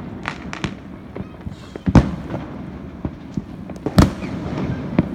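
Fireworks going off: a string of irregularly spaced sharp bangs and cracks, the two loudest about two seconds and four seconds in, over a steady background noise.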